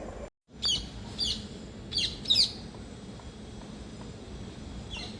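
A bird calling in short, sharp, downward-sweeping chirps: four in the first two and a half seconds and a fainter one near the end, over a steady low outdoor background.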